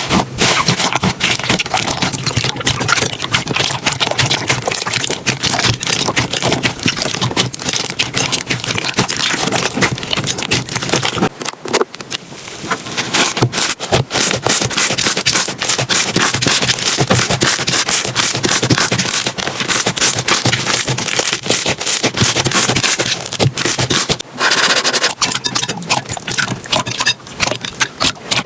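Slime being squeezed and poked by hand, a dense run of wet clicks, pops and crackles, with two short lulls.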